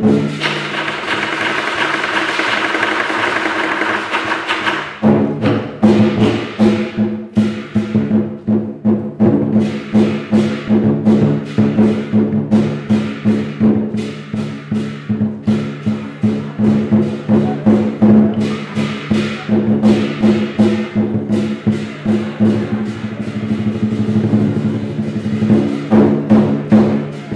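Lion dance percussion: a big Chinese lion drum with gong and cymbals. It opens with about five seconds of fast continuous cymbal crashing, then settles into steady rhythmic drum and cymbal strikes over a ringing gong tone.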